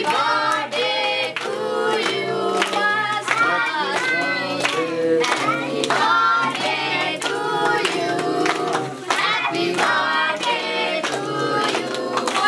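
Voices singing a song together over a music accompaniment, with hands clapping along.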